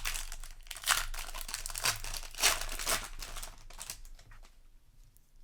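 Foil booster pack wrapper crinkling and crackling as it is handled, dying down over the last second or so.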